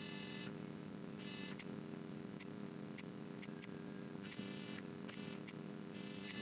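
Computer mouse clicking: about ten short, sharp clicks at uneven intervals over a faint steady hum.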